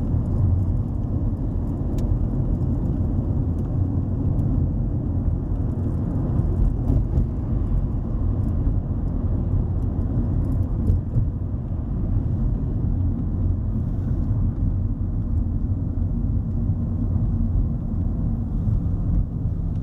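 Road noise inside a moving car: a steady low rumble of tyres and engine.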